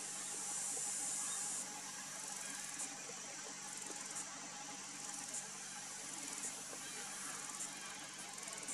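A chorus of insects trilling high and shrill, louder for the first second and a half, then pulsing on and off.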